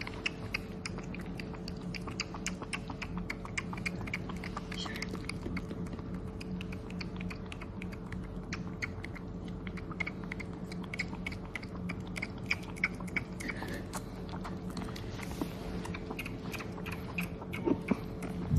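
Kitten drinking milk formula: a steady run of quick, wet smacking clicks, several a second.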